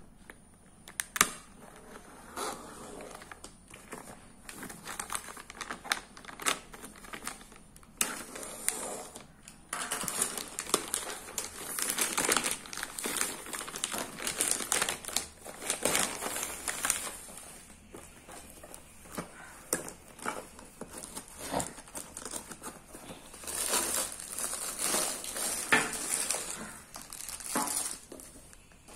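Thin plastic courier mailer being torn open and handled: irregular crinkling and rustling of plastic with scattered sharp crackles. It comes in louder stretches as the packaging is pulled apart.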